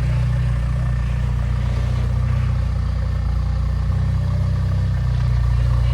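A motor vehicle's engine running steadily with an even low hum.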